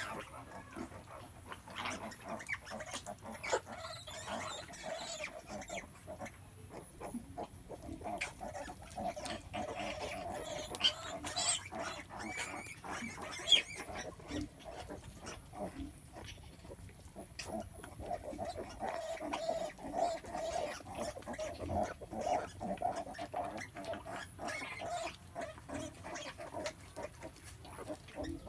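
Pigs grunting in a farrowing pen: a sow giving birth and her newborn piglets, in recurring stretches of mid-pitched calls over many short clicks and scuffs.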